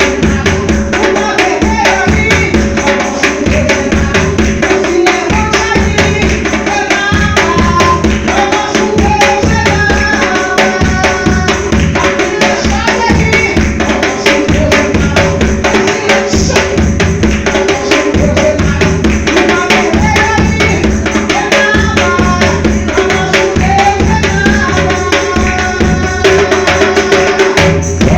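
Brazilian gospel band music driven by a timbal hand drum playing fast strokes over a steady marcação bass drum beat, with a melody on top. The music cuts off at the very end.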